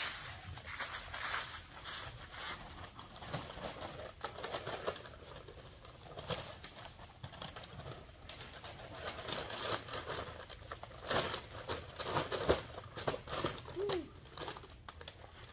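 Dry leaves and a cardboard box rustling and crinkling in irregular short strokes as the box is carried and handled, with a short, low cooing call near the end.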